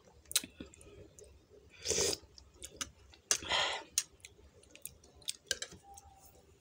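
Metal fork and spoon clicking and scraping against a plastic bowl of instant noodles, with many small sharp clicks. There are two louder, longer noises, about two seconds in and again about three and a half seconds in.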